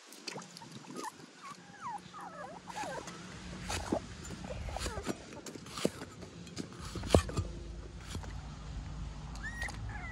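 Cleaver knocking on a wooden chopping stump while slicing ginger: a string of sharp knocks, the loudest about seven seconds in. Short gliding animal calls are heard in the background, mostly early on.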